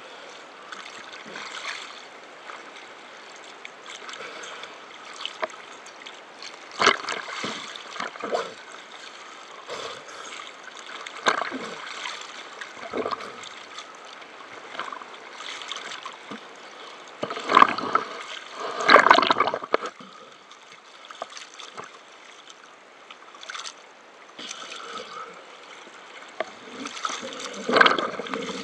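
Water splashing and gurgling around an underwater camera housing, with irregular louder splashes, the biggest about two-thirds of the way through and again near the end.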